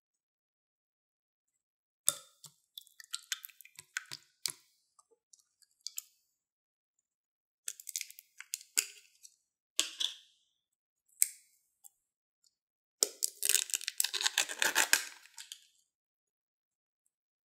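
Sticky clicks and crackles of slime being squeezed in the hands, starting about two seconds in. A small plastic slime tub is then handled and its lid pried open, with a dense run of crackling and popping about three-quarters through.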